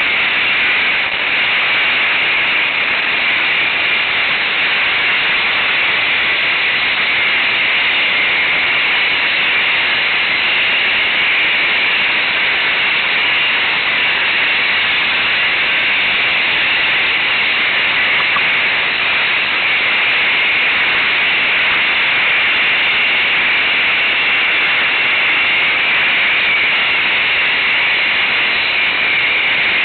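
Steady, loud hiss-like noise of riding an ATV along a dirt trail, with no distinct engine note standing out.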